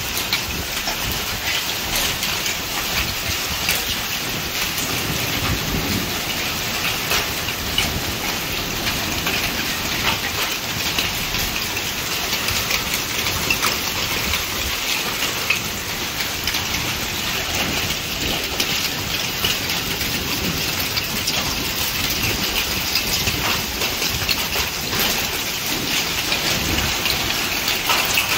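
Heavy rain pouring steadily onto corrugated metal roofs, a dense, even downpour made of countless drop impacts.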